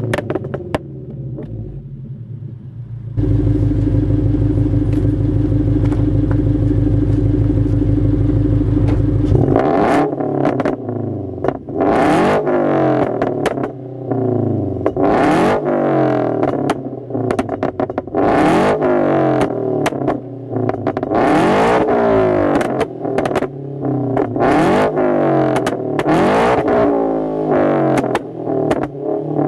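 Scion FR-S's 2.0-litre flat-four running on a pop-and-bang backfire tune. It runs quietly at first, then louder and steady for several seconds. From about ten seconds in it is revved over and over, with sharp pops and crackles from the exhaust as the revs fall.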